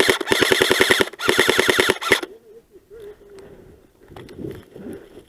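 Airsoft rifle firing full-auto in three quick bursts of rapid, evenly spaced shots, stopping about two seconds in.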